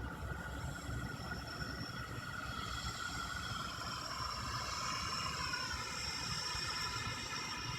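Unexplained droning noise in the night sky: several steady high tones that slowly bend in pitch partway through, over a constant low rumble.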